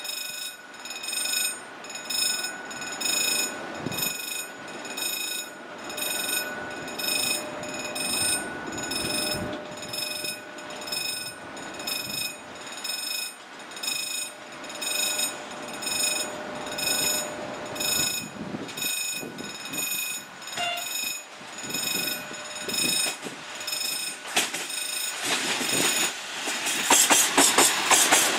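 Railway level-crossing warning bell ringing in a steady, regular rhythm of about three strokes every two seconds. Near the end a train comes up close and its running noise rises loudly over the bell.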